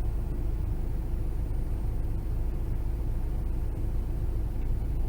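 Steady low rumble inside a car's cabin, with nothing changing or standing out.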